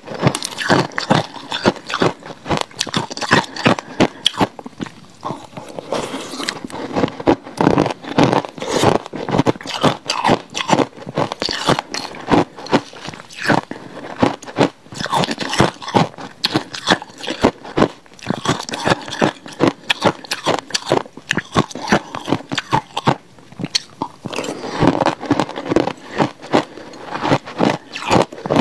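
Close-miked crunching and chewing of ice mixed with passion fruit pulp: a continuous run of crisp bites and crunches, several a second. Now and then a metal spoon scrapes the plastic bowl.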